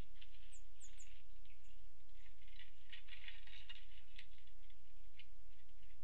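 Woodpeckers clinging to and pecking at a wire-cage suet feeder: scratchy taps and clicks, densest in the middle, over a steady low electrical hum. Three quick high chirps come about a second in.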